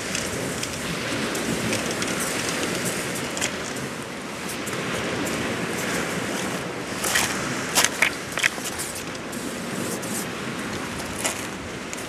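Steady rushing of wind and surf, with short hisses of an aerosol spray paint can and a cluster of sharp clicks and bursts about seven to eight seconds in.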